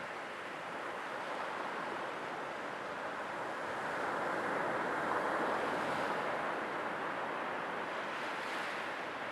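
Sea waves washing in, a steady rushing that swells to a peak about halfway through and eases off again.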